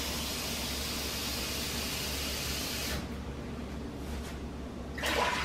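Kitchen faucet running water at full flow into a measuring cup for the brine, shut off abruptly about three seconds in. A brief louder noise follows near the end.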